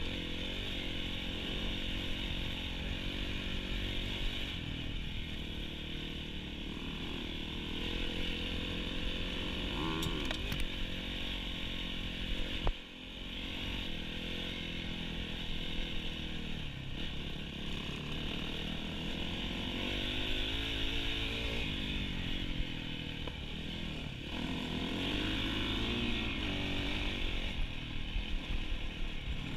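Dirt bike engine running under load, its revs rising and falling with the throttle. About 13 seconds in there is a sharp knock and the engine briefly drops off before picking up again.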